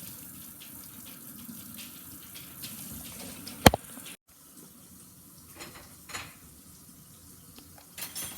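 Water running steadily, with one sharp clink a little past halfway. It cuts off suddenly, and a few quieter clinks and taps follow.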